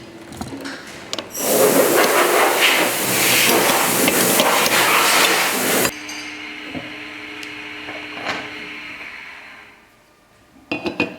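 Workshop tool noise while the aluminium parts are worked: a loud rushing, rasping noise lasting about four seconds that cuts off suddenly, followed by a quieter steady hum and a few sharp clicks near the end.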